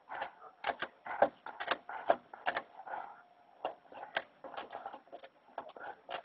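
A Doberman gnawing at the edge of a painted board: irregular clicks and crunches of teeth biting and scraping, several a second. The uploader puts the gnawing down to nerves.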